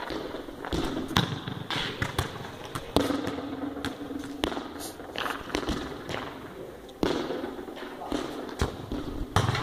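Soccer ball being kicked and bouncing on a concrete court: a series of sharp thuds at irregular intervals.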